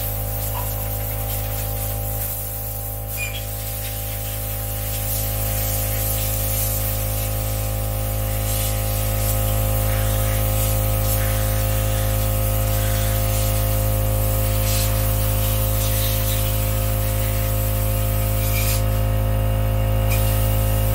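A steady, unchanging hum with a hiss over it, like a machine running in a small room, with a few faint knocks.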